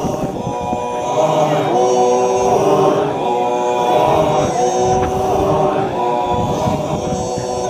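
A group of men chanting together a cappella, a droning chant likened to an aeroplane in the air. It moves in short repeated phrases of long held notes that step down in pitch.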